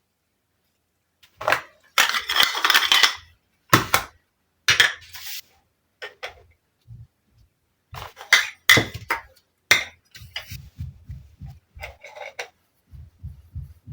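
Miniature toy tea set pieces clinking and clattering as they are handled: bunches of small sharp knocks, with soft low tapping toward the end.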